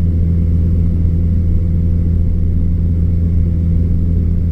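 Cessna 172's piston engine and propeller droning steadily in flight, heard inside the cockpit: a constant low hum with no change in power.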